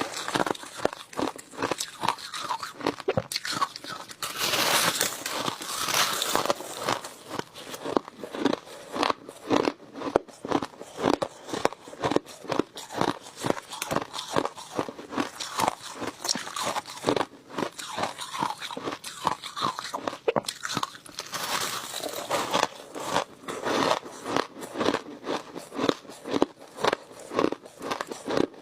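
Close-miked crunching of crushed ice being bitten and chewed, a rapid run of crisp crackles and crunches with no let-up.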